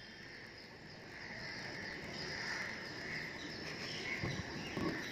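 Insects chirring steadily in a high, even drone, slowly getting louder, with a few soft thumps near the end.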